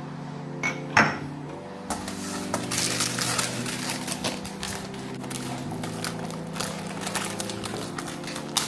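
Soft background music of sustained chords that change every couple of seconds, over light clattering and clicking of objects being handled, with a sharp knock about a second in.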